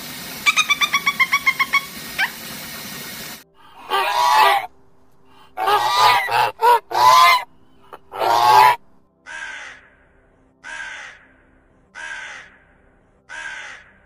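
A budgerigar chattering in a rapid run of chirps, then a Canada goose honking loudly several times, then a raven cawing four times, about a second and a half apart.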